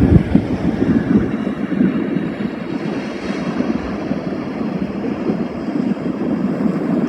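Wind buffeting the microphone over the steady wash of sea surf on the beach; the low rumble of the wind eases about a second in.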